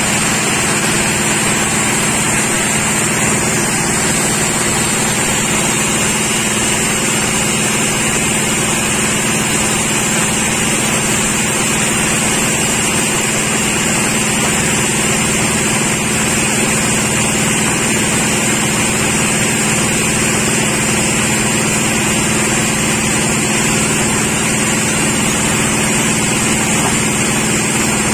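Sawmill machinery running steadily with an unchanging engine-like hum.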